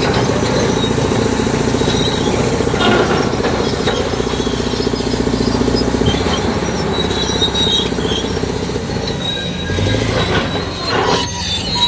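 Fiat-Hitachi FD30C crawler bulldozer working under load as it shoves a huge boulder with its blade: its 480-hp diesel running hard under a high metallic squeal from the steel tracks.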